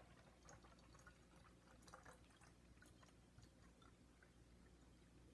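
Very faint trickle of water poured from a measuring jug into a plastic bottle, with scattered small drips and ticks in the first few seconds; otherwise near silence.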